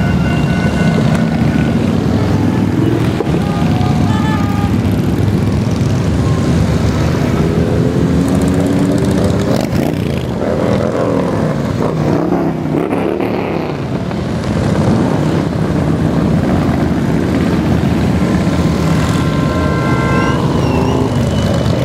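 A steady stream of large V-twin touring motorcycles riding past one after another, their engines rumbling continuously, easing slightly about halfway through before building again.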